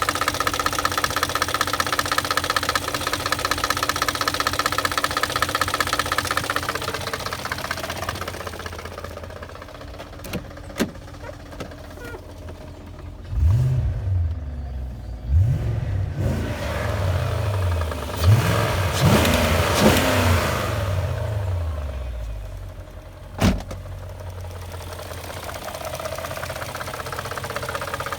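BMW M62B44TU 4.4-litre V8 running with a knock from the front of the engine in the VANOS area, a noise that comes only while the engine is warming up. In the middle the engine is revved in about five short blips before settling back to idle, with a couple of sharp single clicks.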